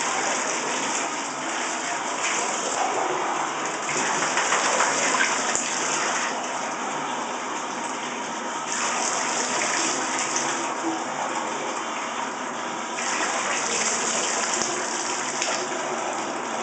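Water running and splashing steadily in a bathtub as a wet West Highland White Terrier is rinsed of shampoo suds.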